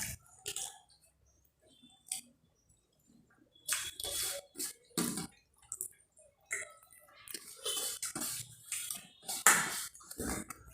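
Kitchen sounds of cooking: pots and utensils knocking and water splashing in irregular bursts, with a quiet stretch from about one to three and a half seconds in.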